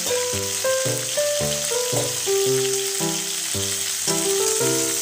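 Okra, onion and tomato frying in oil in a kadai, a steady sizzle, under background music with a melody of short held notes.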